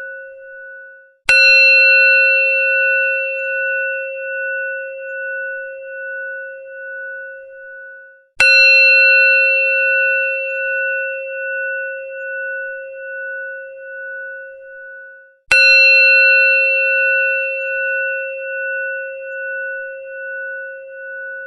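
A temple bell struck three times, about seven seconds apart, each strike ringing on with a long, wavering decay that cuts off just before the next. The ring of an earlier strike is dying away at the start.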